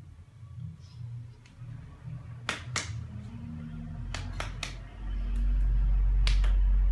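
Sharp slaps of hands striking together, a pair, then three quick ones, then another pair near the end, over a faint steady hum. A deep low rumble starts about five seconds in and is the loudest sound.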